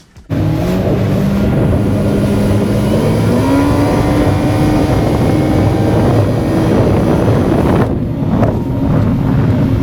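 Boat engine running under way, its pitch rising about three and a half seconds in as it speeds up, with wind and water rushing past.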